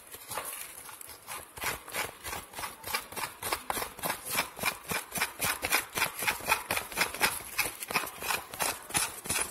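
Fresh grated coconut being chewed: a rapid, steady run of crisp crunches, about four a second.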